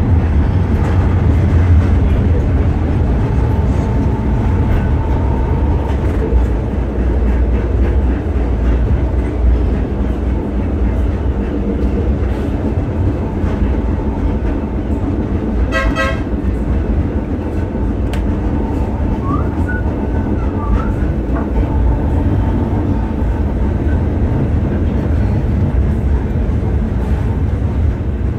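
Blackpool Balloon 700 double-deck tram running along the track, heard from the driver's cab: a steady low rumble of motors and wheels. About halfway through comes one short toot of the tram's warning horn.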